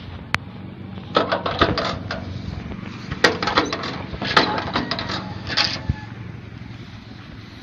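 Knapsack sprayer in use, its pump and spray lance giving four short spells of clicking and rattling over a steady faint hiss.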